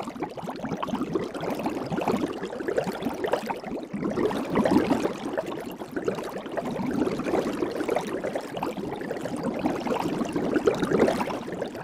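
Soap bubbles bubbling and popping in a steady, dense run of many small pops.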